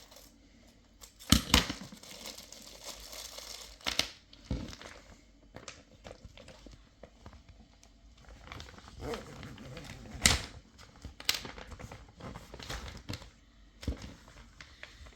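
Plastic reusable vacuum bag crinkling as it is handled and its zip seal pressed shut, with scattered sharp clicks and snaps.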